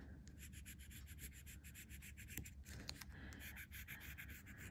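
Faint rubbing of a ball-tipped embossing tool over aluminium metal tape laid on raised string, in many quick, short, repeated strokes.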